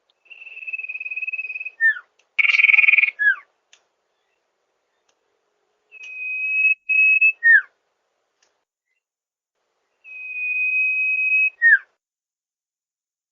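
Sirtu bird call played as a masteran lure: a long, level, high whistle of about a second and a half, ending in a short falling note. The phrase repeats three times, about four seconds apart. After the first phrase comes a louder, harsher burst with another falling note.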